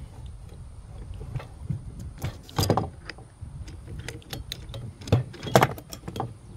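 Scattered metallic clicks and knocks from handling tools and metal parts, with louder clattering knocks about two and a half and five and a half seconds in, over a low steady hum.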